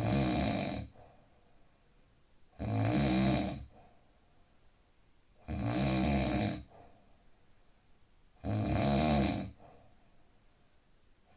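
A man snoring in deep sleep: a loud snore of about a second, repeating evenly about every three seconds, with quiet breathing between.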